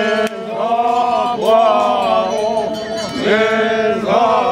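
Konyak Naga men chanting together in a group. The voices swoop up into long held notes, phrase after phrase, over a steady low drone.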